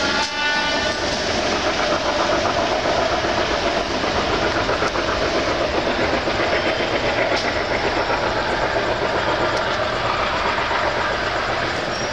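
Indian passenger train running on the tracks: a steady, loud rumble of wheels and carriages with some rail clatter. A brief tone sounds during the first second.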